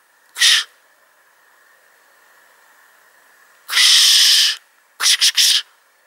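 Woodpecker hammering at the bark of a pine trunk in bursts of rapid strikes: a short burst, then a longer one of almost a second, then three quick bursts.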